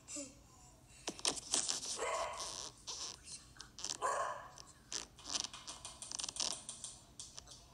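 A dog barking: two longer barks about two seconds apart, with shorter ones among them, over light clicking.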